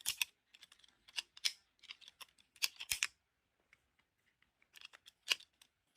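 A plastic fidget toy being handled, giving light, irregular clicks in small clusters with short silent gaps between them.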